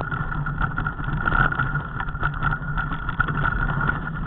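Mountain bike rolling over a rough, stony dirt track: a steady rumble with many small, sharp knocks and rattles as the tyres hit stones and the bike and camera mount shake.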